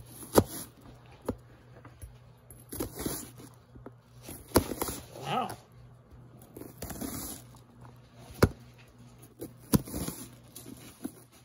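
Chef's knife slicing through a raw onion and knocking down onto the cutting mat, in irregular chops with sharp knocks every second or so.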